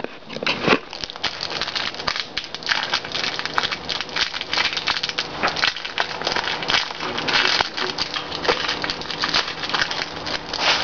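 Plastic wrapping crinkling and crackling in quick irregular bursts as a dishwasher tablet is unwrapped.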